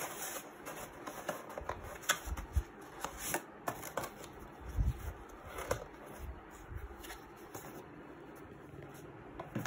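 Taped cardboard shipping box handled and pried open by hand: irregular rustling and scraping of cardboard with sharp little cracks and clicks.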